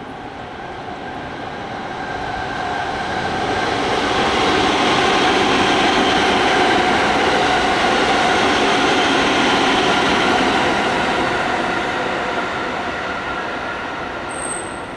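Electric train passing on a raised track: its rumble and wheel noise swell over the first few seconds, hold steady with a running hum, then fade away near the end.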